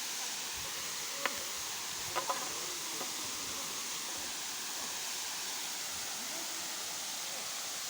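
Waterfall rushing steadily, a continuous whooshing, with a few faint clicks about one and two seconds in.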